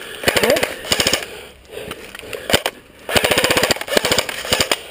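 Airsoft guns firing full-auto: a burst of about a second, a single shot, then a longer burst of nearly two seconds of rapid clicking shots.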